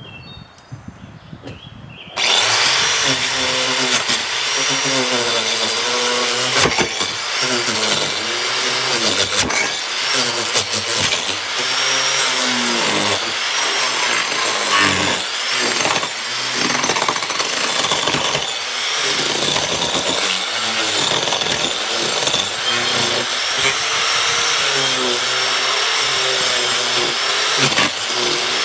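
Power tool cutting wood, starting up about two seconds in and running loud and steady, its motor pitch dipping and recovering again and again as it bites into the wood.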